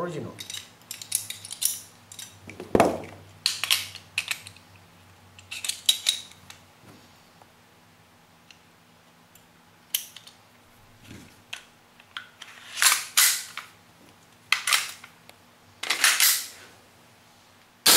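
Scattered clicks and clacks of metal and plastic parts as a WE Glock 17 gas blowback airsoft pistol is reassembled: inner barrel, recoil spring guide and slide being fitted and handled, in short bursts with pauses between.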